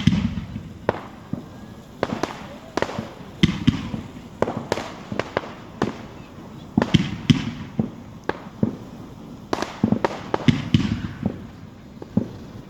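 Fireworks going off in a display: a run of sharp bangs and crackling reports at irregular intervals, several a second at times.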